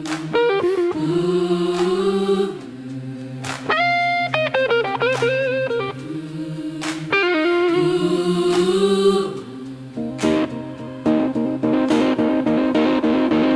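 Instrumental break of a blues gospel song: a lead guitar plays phrases with bent notes over sustained chords and drum hits, with faster repeated notes near the end.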